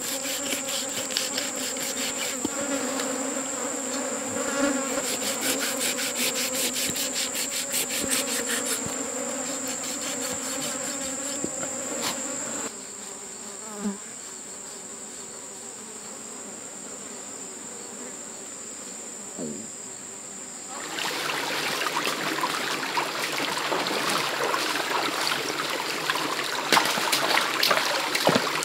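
Steady high-pitched insect drone with a lower insect buzz, over quick repeated scraping of a knife blade through coarse animal fur. About twelve seconds in the scraping stops and the forest turns quieter. From about two-thirds through, an even rush of shallow running stream water takes over.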